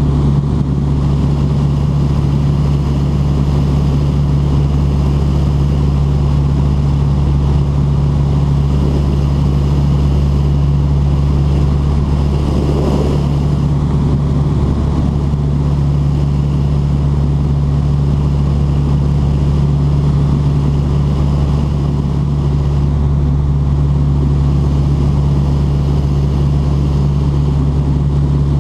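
Light aircraft's engine and propeller droning steadily in flight, heard inside the cockpit.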